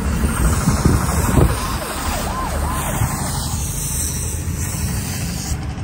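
Road noise inside a moving car in city traffic: a steady rumble and hiss. About two and a half seconds in, a few short rising-and-falling tones sound briefly over it.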